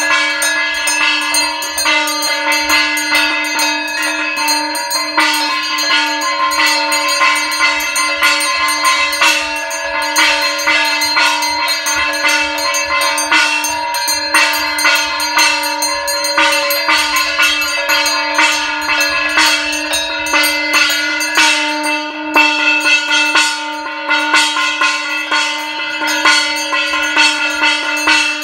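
Brass puja hand bell rung rapidly and continuously, its strokes running together into one steady ringing, as is done while the aarti flame is waved before the altar.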